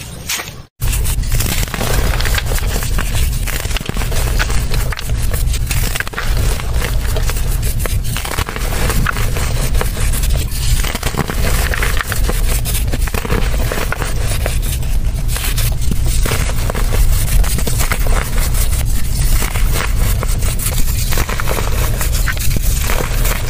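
Hands crushing and crumbling dry molded earth chunks into loose soil: a continuous dense, crackling crunch. There is a split-second break about a second in.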